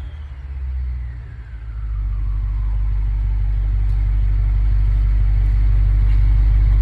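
BMW 550i's twin-turbo V8, with Supersprint downpipes and exhaust, settling back to idle after a rev. A faint whine falls in pitch over the first two seconds, then a steady, deep idle rumble grows slightly louder.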